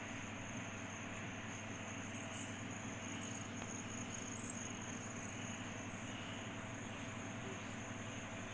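Steady low background hum with a continuous high-pitched whine over it.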